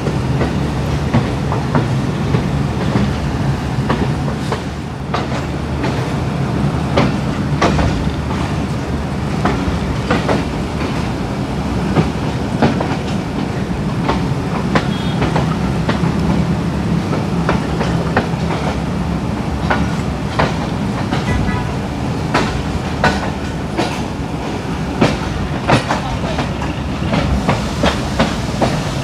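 Passenger train running on the track: wheels clacking irregularly over rail joints and points, over a steady low rumble.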